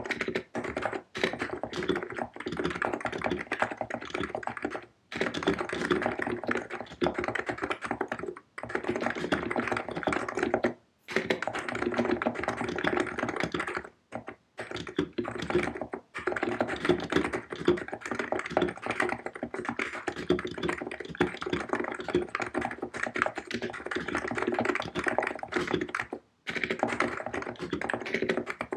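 Keystrokes on a COX Empress electro-capacitive keyboard with 50 g switches, typed in fast continuous runs. The runs break off briefly a few times.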